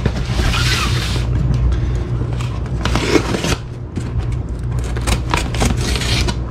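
A cardboard shipping box is slid across a wooden bench, and its packing tape is slit with a utility knife, giving scraping and rustling with short sharp noises, over steady background music.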